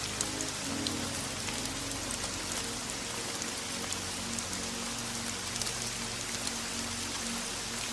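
Steady rain, an even hiss with scattered sharper drop ticks. Faint low sustained music notes sit underneath it.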